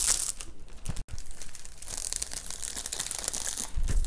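Clear plastic cover film on a diamond-painting canvas crinkling and rustling as hands press and smooth it flat, in irregular bursts with a brief dropout about a second in.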